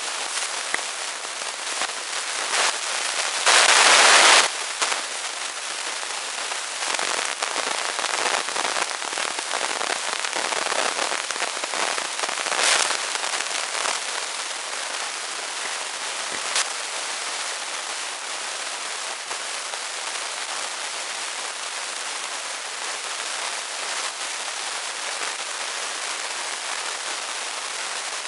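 Steady crackling hiss of rain falling on paving stones, with one louder rush lasting nearly a second about three and a half seconds in.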